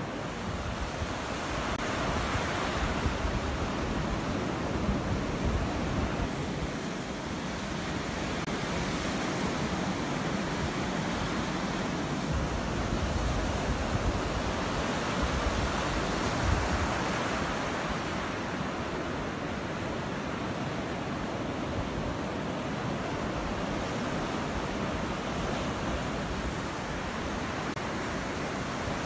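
Ocean surf: small waves breaking and washing up a sand beach, a steady hiss that swells and eases every several seconds.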